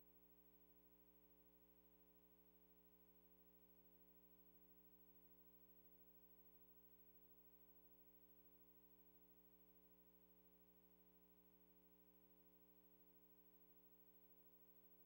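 Near silence: a faint, steady hum and hiss with no other sound.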